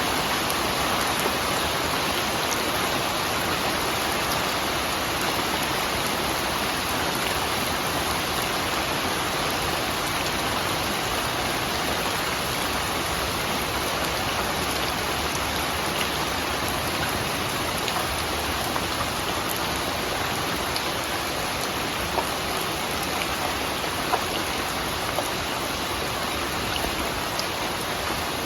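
Steady heavy rain falling and pattering on surfaces, an even hiss with a few sharper drops standing out in the second half.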